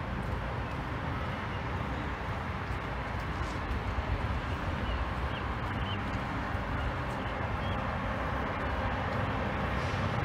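Steady outdoor city ambience: a low, even rumble and hiss of distant traffic, with a few faint high chirps about halfway through.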